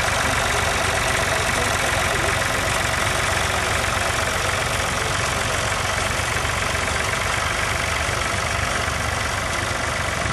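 Tractor engine running steadily under load while pulling a mounted plough through the soil.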